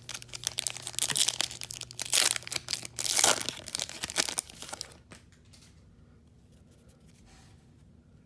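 A trading card pack wrapper being torn open and crinkled: a quick run of rips and crackles that stops about five seconds in.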